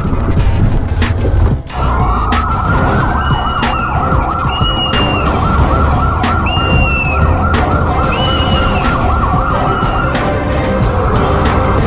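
Police siren in a fast yelp, warbling rapidly up and down from about two seconds in until near the end, with a few short high falling chirps over it.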